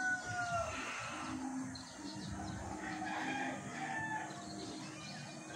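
A rooster crowing: the falling tail of one crow in the first second, followed by fainter calls and short bird chirps over outdoor background noise.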